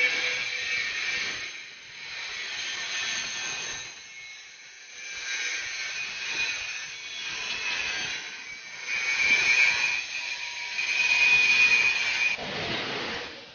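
A metalworking power tool working steel: a loud hissing noise with a thin steady high whine, swelling and easing in bouts every couple of seconds.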